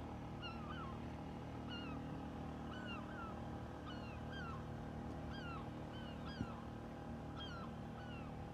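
Welsh terrier whining for food: short, high-pitched whines that rise and fall, repeated every second or so, over a steady low hum.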